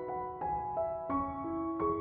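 Background piano music, with a new note about every third of a second.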